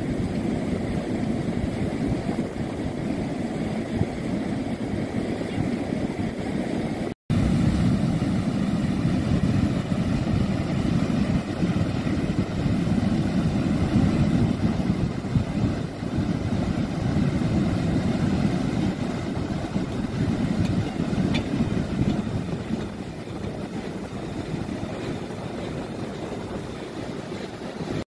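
Floodwater pouring over a low concrete weir: a steady rushing sound, cut off for an instant about seven seconds in.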